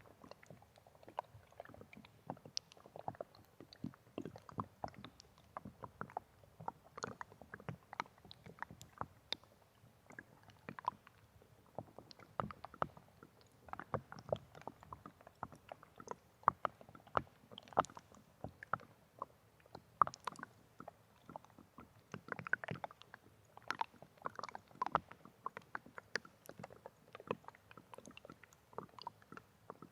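Water sloshing and lapping: a dense, irregular run of small plops and splashes with no steady rhythm.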